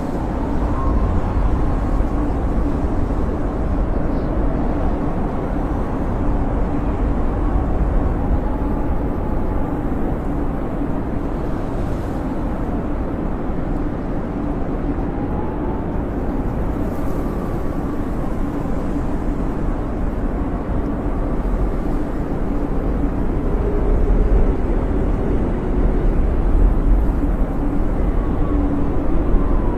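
Blizzard wind howling steadily: a deep, even rumble with faint whistling tones that rise and fall.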